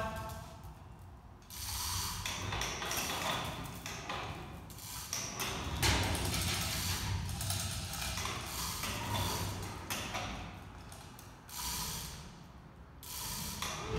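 Overhead chain hoist lifting an aluminum boat hull, its chain rattling and clicking through the hoist. It starts about a second and a half in and breaks off briefly near the end.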